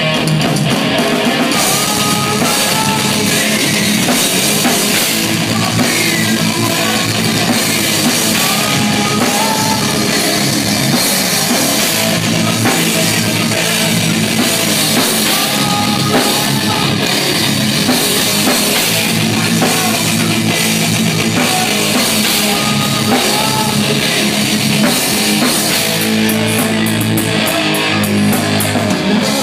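Rock band playing loud and live: distorted electric guitars, a drum kit with cymbals, and a vocalist shouting into a microphone.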